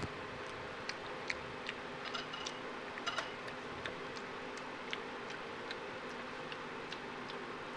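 A java macaque chewing with its lips smacking, a string of irregular wet clicks, busiest around three seconds in, over a steady low hum.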